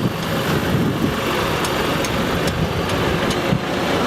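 Vehicle engine running steadily, with a few faint clicks.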